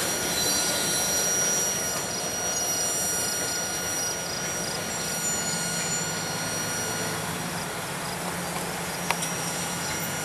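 Norfolk Southern freight train's tank cars rolling away, with thin steady high squeal from the wheels on the rails. A single sharp click about nine seconds in.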